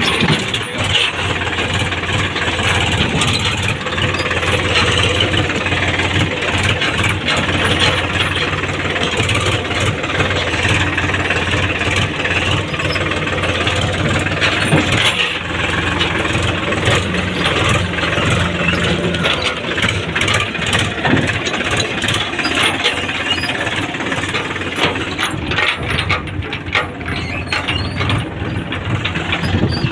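Tractor diesel engine running steadily, with a constant rattle and clatter of loose metal parts over its hum.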